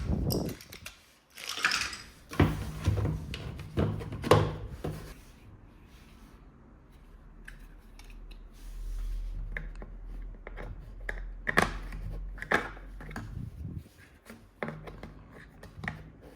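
Plastic toys and packaging being handled at close range: a string of sharp clicks, taps and rustles, busiest in the first few seconds and again about two-thirds of the way in, with a low hum in between.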